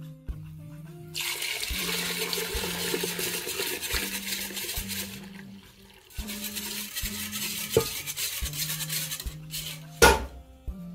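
Wire whisk beating milk in an earthenware bowl: frothy liquid swishing and sloshing in two spells of a few seconds each, with a sharp knock about ten seconds in.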